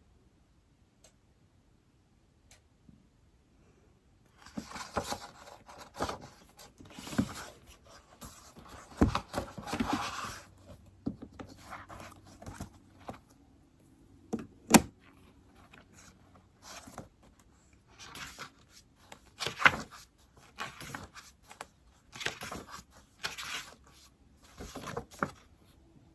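Writing on an iPad: scratchy strokes in irregular bursts with sharp taps on the screen, starting about four seconds in.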